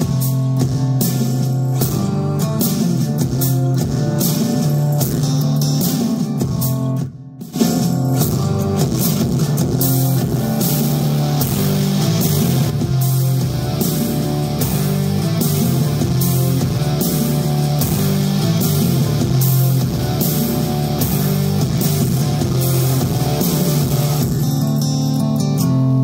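Rock music with guitar, bass and drums played loud through Kicker CS Series 6x9 three-way car speakers in small boxes. About seven seconds in it drops out briefly as the track changes, then carries on.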